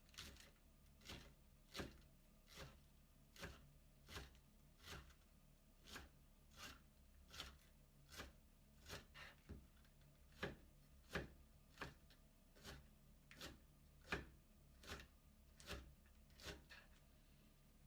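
Knife shredding a head of cabbage into thin strips: crisp, even strokes, a little more than one a second, in a steady rhythm.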